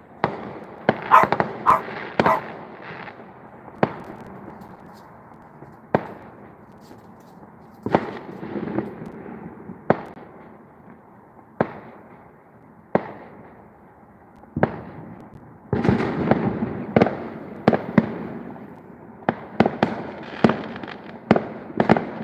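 Distant fireworks going off: irregular sharp bangs with crackling and echoing tails, a few seconds apart in the middle and coming thick and fast near the start and again for the last several seconds.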